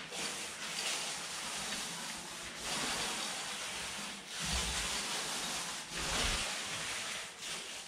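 Panda fixateur paint roller rolling primer onto a skim-coated plaster wall: a wet, hissing swish in a series of up-and-down strokes, each a second or two long.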